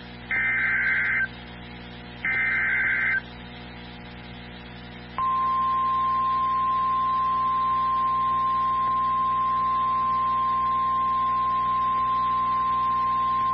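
NOAA Weather Radio alert sequence: two short buzzy bursts of SAME digital header data, the last two of a set of three. Then, from about five seconds in, the steady single-pitch 1050 Hz warning alarm tone holds for about nine seconds. It signals that a warning, here a severe thunderstorm warning, is about to be broadcast.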